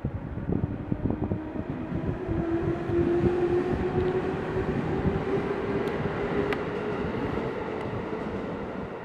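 Electric train running along the track, its motor whine rising slowly in pitch as it gathers speed, over the rumble and clicking of wheels on rail.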